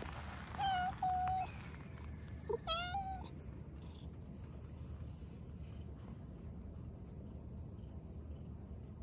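Black cat meowing: a few short meows in the first three seconds, the last one rising and then falling in pitch, while it is being stroked.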